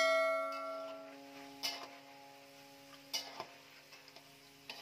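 A metal wok ringing and fading after being struck by a metal spatula, followed by three light metallic taps about a second and a half apart as the fried potatoes are scooped out with a wire-mesh strainer.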